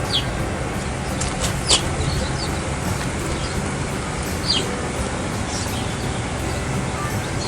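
Outdoor ambience: a steady low rumble, with a few short, high chirps from small birds, each sweeping downward.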